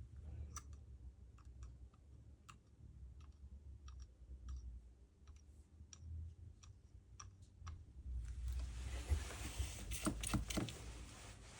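Scattered light clicks and taps of small hand tools at an electronics repair bench. About eight seconds in, a steady hiss starts, with a burst of sharper clicks on top of it.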